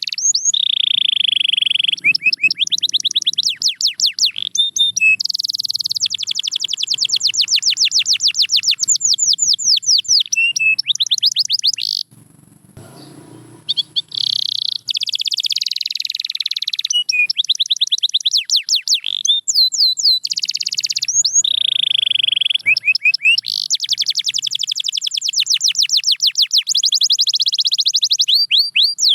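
Domestic canary singing: long phrases of fast, high trills and rolling repeated notes. The song breaks off for about two seconds near the middle, then resumes.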